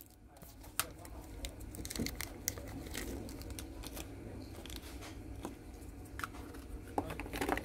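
Clear plastic bags around small figures crinkling as they are handled and set down on a table: scattered light crackles, with a couple of sharper taps near the end.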